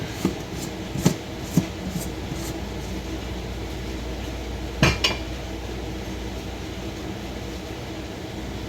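A metal utensil clinking and knocking against a cooking pan: a quick run of clicks in the first couple of seconds, then two sharper knocks about five seconds in. An air conditioner hums steadily underneath.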